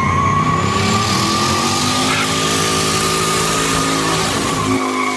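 Pickup truck doing a burnout: engine held at high revs, its pitch climbing slightly and then holding, over a loud, steady tyre squeal and the hiss of spinning tyres. The engine's low rumble drops away near the end.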